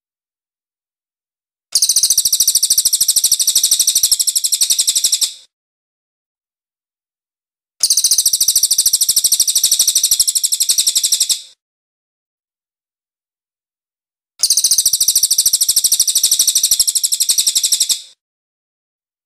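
Cililin bird song played as a songbird tutor track: three bursts of a fast, even, high-pitched trill, each lasting about four seconds. The bursts are split by pauses of about two and a half seconds of silence.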